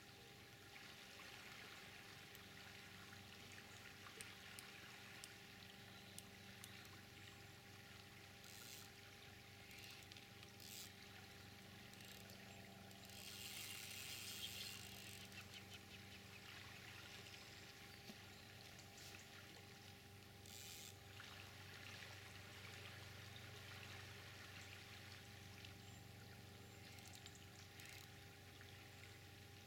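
Near silence with the faint rush of a flowing river. A few soft clicks are scattered through it, and a brief swell of hiss comes about halfway.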